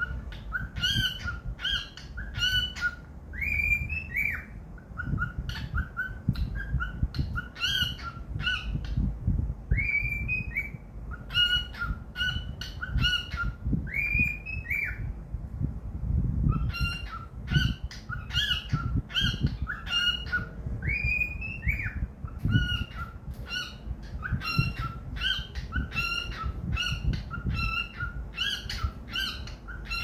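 Lutino cockatiel singing: quick runs of short chirps, broken every few seconds by a longer whistle that rises and falls, over a low rumble.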